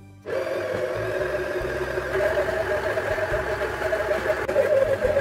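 Kenwood stand mixer switched on a moment in, its motor then running steadily at low speed as it kneads flour, oil and water into bakpao dough.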